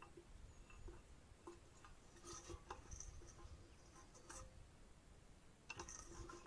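Near silence broken by faint, irregular light ticks and taps, a few clustered about two to three seconds in and again near the end.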